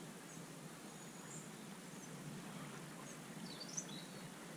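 Quiet seaside ambience: a low steady background hiss with a few faint high bird chirps, the clearest a little after three and a half seconds in.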